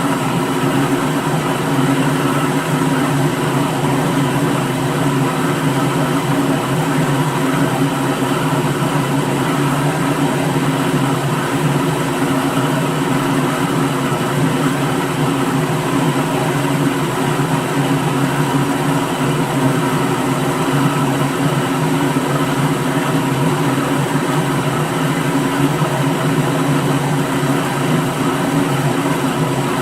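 Electric kitchen blender motor running continuously at one steady speed, its hum and whir holding unchanged in pitch and loudness.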